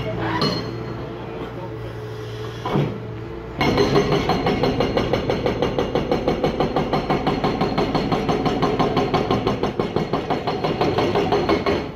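Demarec DFX-32 hydraulic breaker on a Liebherr 936 excavator hammering concrete in rapid, evenly spaced blows, starting about three and a half seconds in. Before that only the excavator's engine is heard, running steadily.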